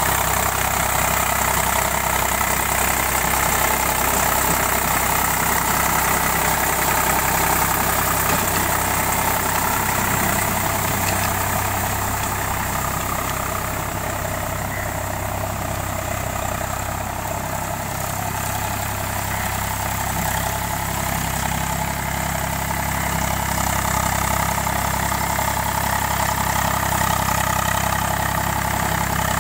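Eicher tractor's diesel engine running steadily under load while it drives a rotary tiller through a flooded, muddy field, a little fainter in the middle as it pulls away.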